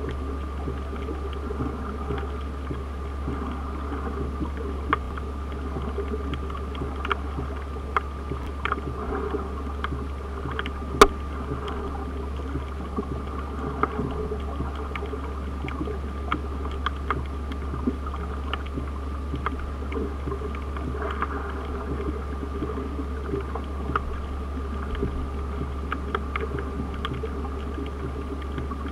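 Underwater sound on a shallow coral reef, picked up by a submerged camera: a steady low hum with faint steady tones, dotted with small clicks and crackles, and one sharp click about eleven seconds in.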